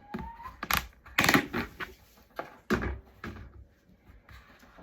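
Dry chicken treat mix (dried mealworms, cracked corn, scratch grains and sunflower seeds) poured into a plastic container, rattling in a few short bursts.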